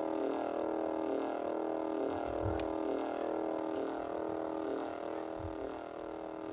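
A clock radio's speaker gives out a steady droning tone of several held pitches that waver slightly.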